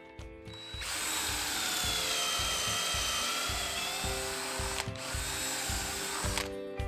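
Cordless drill boring a pocket hole through a Kreg jig's guide into a wooden board: it starts about a second in and runs steadily, with a short break near five seconds. Background music with a steady beat plays underneath.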